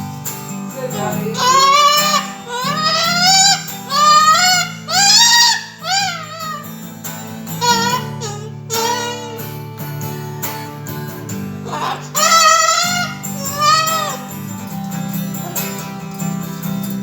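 A cockatoo vocalising in high, sliding, song-like phrases along with a guitar playing underneath. The calls come in bunches, with a lull midway before another run of calls.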